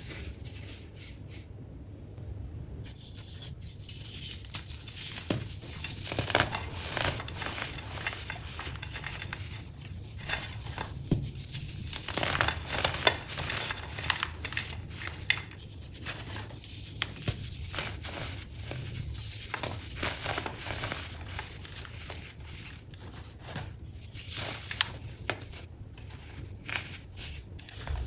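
Crunchy baking soda being crushed, a dense run of small crackles and crunches that gets busier about halfway through.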